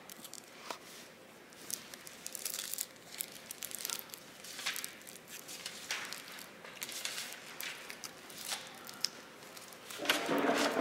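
Paper rustling and crinkling in short, irregular bursts as sheets of collage paper are handled and brushed with paint, with a louder rustle near the end.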